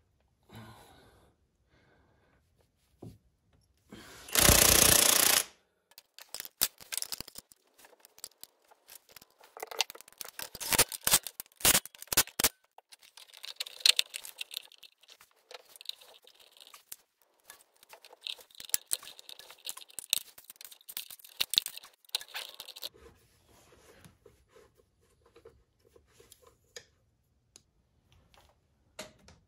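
A power impact wrench runs in one burst of a bit over a second, driving the 30 mm flywheel nut onto the magneto-side crankshaft. It is followed by a long stretch of scattered metallic clicks and knocks from hand tools and parts.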